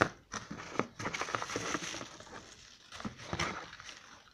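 Hand rummaging in a cardboard box: a quick run of knocks and scrapes against the cardboard, with rustling, as small plastic accessories and cables are handled and lifted out.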